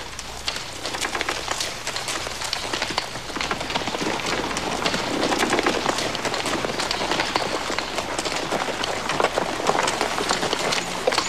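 Hooves of several horses walking on a dirt trail: a dense, irregular patter of hoof falls, growing a little louder after a few seconds.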